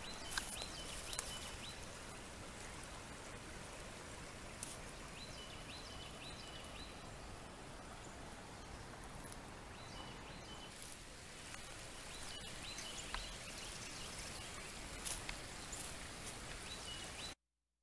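Faint outdoor ambience: a steady hiss with a few short, high bird chirps scattered through. It cuts off suddenly near the end.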